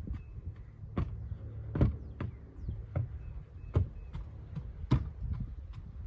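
A series of irregular knocks and thumps, roughly one every half second to a second, over a steady low rumble.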